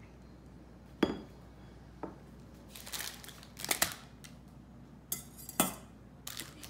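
Kitchen utensils being handled: a stainless steel saucepan, a whisk and a spatula knock and clink against the table and each other. The sharpest clank, about a second in, rings briefly, and scattered lighter knocks follow.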